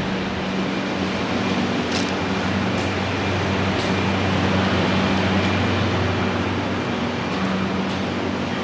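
Air compressor running steadily with a low hum, used to inflate the tires, with a few light clicks in the first half.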